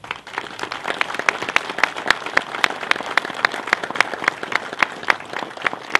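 Crowd applauding, with one set of close, sharp claps standing out about three times a second.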